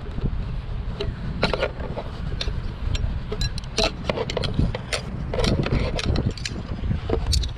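Wind buffeting the camera microphone as a low, constant rumble, with scattered short clicks and scrapes as a round black disc and a bundle of blue poles are handled.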